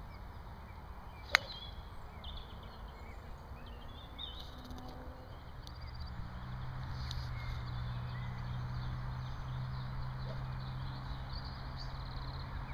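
A golf driver strikes a teed ball once about a second in: a single sharp click. Small birds chirp faintly around it, and a low steady hum comes in about halfway through.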